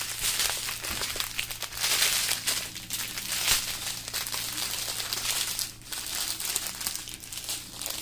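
Small plastic bags of diamond painting drills crinkling as they are handled and sorted, with irregular crackles, louder around two seconds in and again a little later.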